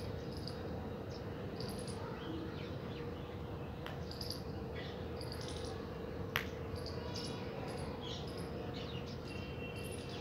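Short, high chirps of small birds scattered over a steady hum, with one sharp tap about six seconds in as a house crow's beak strikes the clay water bowl it is drinking from.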